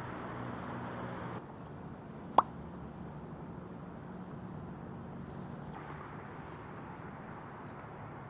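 A single sharp plop on the water about two and a half seconds in, over a steady low background hum.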